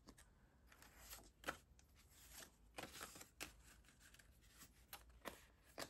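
Faint rustling of paper banknotes being handled and counted, with several short crisp flicks of the bills spread through the stretch.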